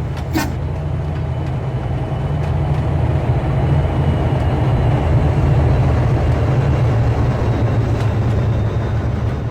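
BNSF diesel train passing close by: a loud, steady low rumble of engines and wheels on the rails, growing a little louder toward the middle, with a brief sharp sound just after the start.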